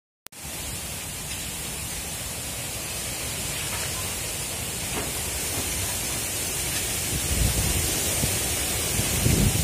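Steady rushing wind noise on the microphone while moving along the road, with louder low buffeting of the microphone twice near the end.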